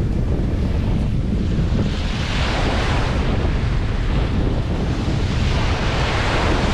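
Surf breaking and washing up a pebble beach, two waves hissing in, one about two seconds in and another near the end, over a steady heavy rumble of wind on the microphone.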